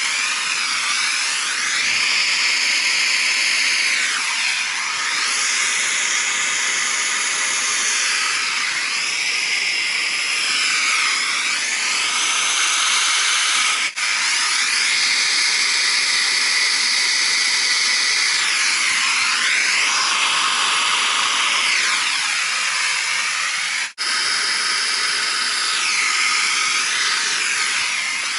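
Loud, steady hissing noise, like air or steam rushing, whose tone sweeps up and down over several seconds. It drops out for an instant twice.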